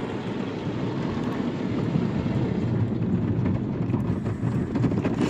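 Automatic car wash working over the car, heard from inside the cabin: a steady noise of water spray and cloth brushes beating against the glass and body.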